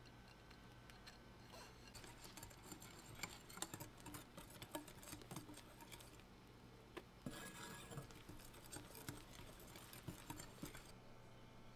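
Wire whisk stirring a matcha flour mixture into egg yolk batter in a glass bowl: faint, quick ticks and scrapes of the wires against the glass, stopping near the end.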